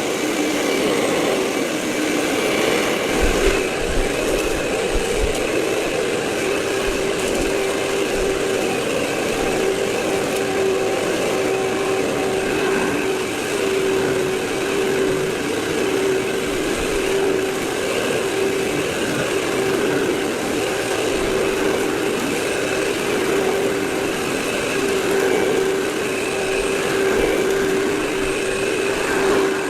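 Vacuum cleaner running steadily, a continuous motor hum and airflow hiss with one steady tone, and a few low bumps about three to five seconds in.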